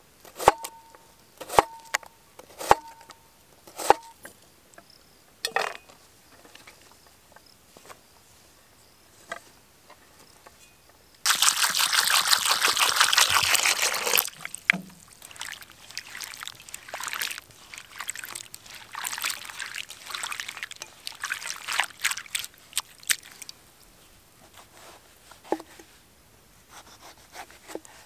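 A large kitchen knife chops through potato on a wooden log board: four sharp knocks with a faint ringing after them, and one more a little later. About eleven seconds in, water is poured into an enamel bowl of cut potato sticks for about three seconds, followed by uneven splashing of water in the bowl.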